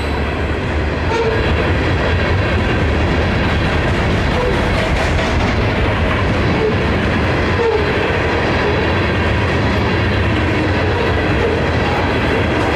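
Freight train of open hopper cars rolling steadily past, a continuous rumble with clattering wheels on the rails.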